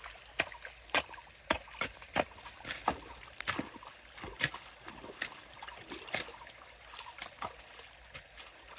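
Shallow water splashing and sloshing in a string of short, irregular splashes, a few each second.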